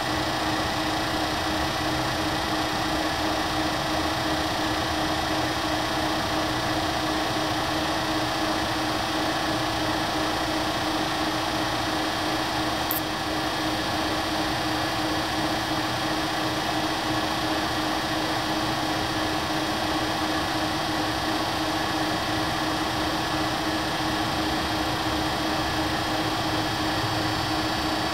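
Warner & Swasey No. 3 ram-type turret lathe running, its turret ram traversing under power feed: a steady mechanical hum with a constant tone.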